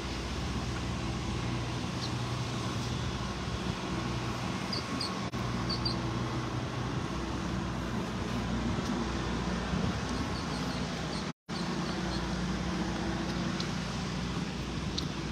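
Steady outdoor background with the even low hum of an engine running nearby, and a few faint short high chirps now and then. The sound cuts out completely for a moment about eleven seconds in.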